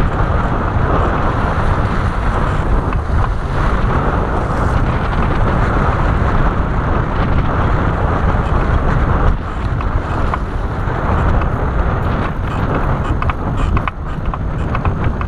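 Strong wind buffeting the microphone, a steady rumble with a rushing hiss, over choppy lake water splashing around the boat.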